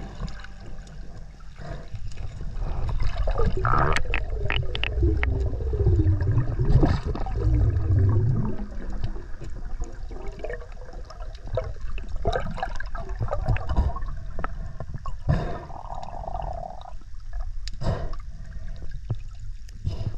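Underwater sound: water sloshing and gurgling with bubbles and scattered clicks, louder from about three to nine seconds in.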